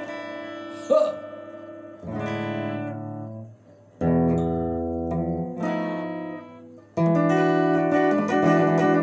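Telecaster-style electric guitar playing single chords, each struck and left to ring. There are four or so, about 1–3 seconds apart, and the last one is held through the end.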